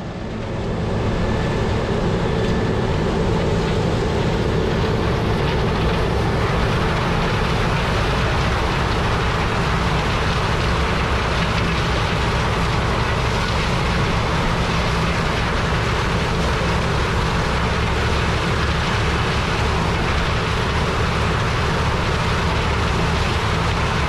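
Combine harvesters running steadily in the field: a constant diesel engine drone under a broad rush of machine noise, fading in over the first second.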